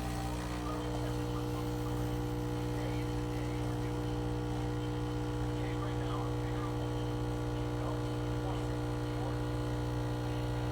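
Saeco PicoBaristo espresso machine's pump running with a steady, even buzzing hum while it dispenses a drink; it cuts off suddenly near the end.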